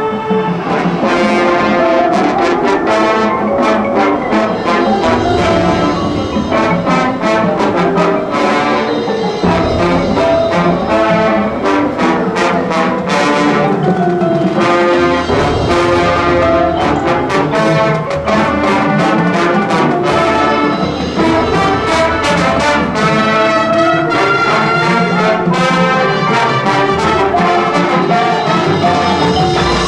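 High school marching band playing a brass-led piece over drums and cymbals, with frequent sharp percussion hits.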